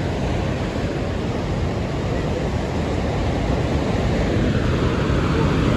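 Loud, steady rush of a flood-swollen, silt-laden mountain river. It cuts off suddenly at the end.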